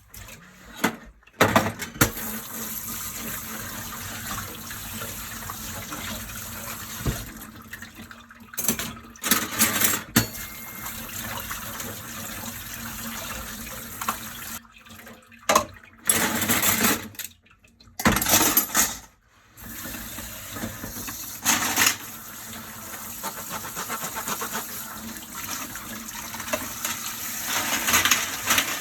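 Dishes being washed by hand at a kitchen sink: tap water running steadily, broken by sharp clinks and clatters of dishes. The water stops briefly several times.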